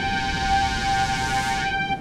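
Background music: one long held note with a hazy backing, fading near the end.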